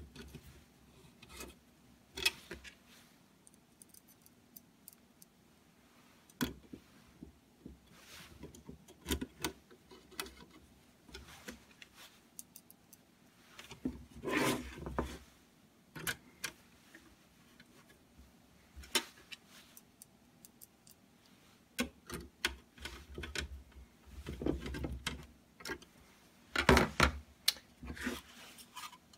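Hands fitting a power supply board into an aluminium enclosure and pressing it down onto brass headers: scattered clicks, taps and scrapes of the board and the metal case being handled, with a couple of longer rustling spells around the middle and near the end.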